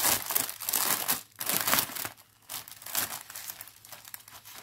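Plastic packaging of a cross-stitch kit crinkling as it is handled and opened to take the printed canvas out: a run of rustles with a short lull about two seconds in.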